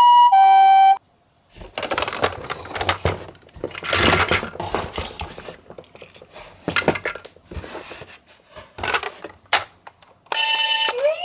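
A toy ambulance's electronic two-tone hi-lo siren cuts off about a second in. Irregular clattering and clicking of small toy cars follows as they are handled. Near the end another toy's electronic siren tones start up.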